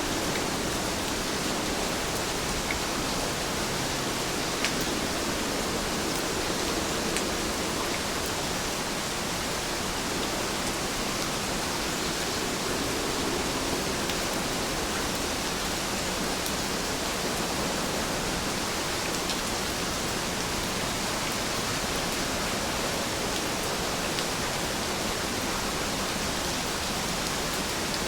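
Steady, even rainfall hiss, with a few faint scattered drop ticks.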